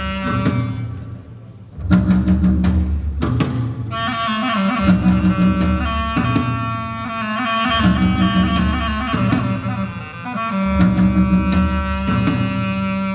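Live band music: drum and cymbal hits over a low, pulsing repeated figure that drops out briefly about a second in, with a clarinet melody entering about four seconds in and wavering in pitch.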